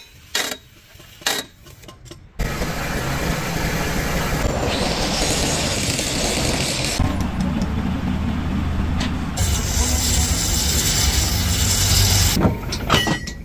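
A few sharp sledgehammer blows on a bulldozer's steel track, then loud continuous heavy-machine noise, a low engine-like running with a steady hiss over it, changing character several times.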